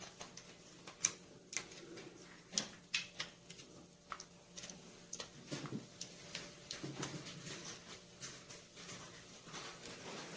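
Scattered light clicks and crinkles of a cut-open aluminium drink can being bent and squeezed by hand, irregular and faint.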